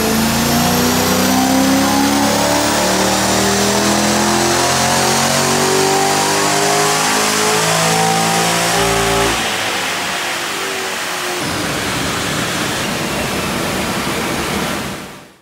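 LS3 V8 with a CNC-ported intake manifold at full throttle on a chassis dyno, revs climbing steadily through a power run for about nine seconds. The throttle then closes and the engine note drops away, leaving a quieter run-down that fades out.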